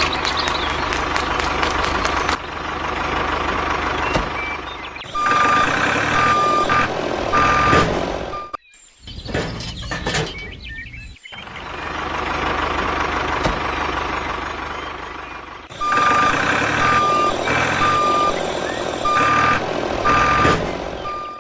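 Vehicle reversing alarm beeping in evenly spaced high tones over the steady noise of a running engine, in two runs with a short break between them.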